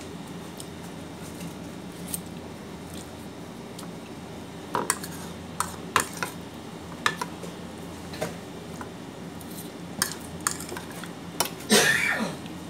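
Metal fork and spoon clinking and scraping on a plate as noodles are scooped up: scattered sharp taps starting about five seconds in, with a louder, longer scrape near the end.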